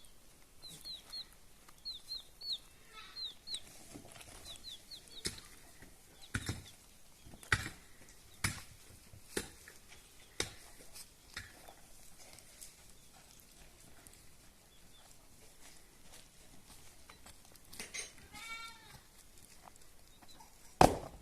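Farmyard sounds: short high chirps at first, then a run of sharp knocks about once a second, and a brief goat bleat near the end.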